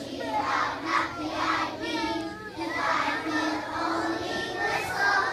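A large group of young children singing together in chorus, holding sung notes that rise and fall in pitch.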